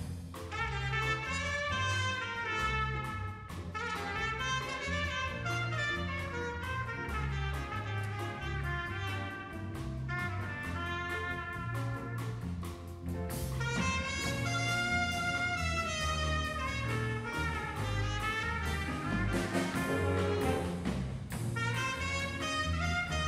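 Jazz big band playing: brass and saxophone section lines over piano, guitar, drums and a stepping bass line. About halfway through, a cymbal-crash accent, after which the band plays louder.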